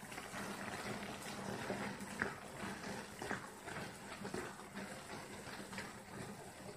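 Wooden spatula stirring rolled oats into a wet vegetable mixture in a pan, a soft scraping with a few sharp knocks against the pan.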